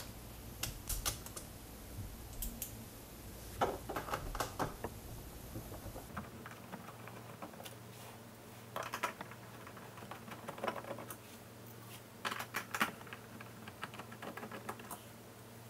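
Scattered small clicks and taps of a precision screwdriver working out the bottom-cover screws of a Roborock S6/T6 robot vacuum, coming in short irregular clusters.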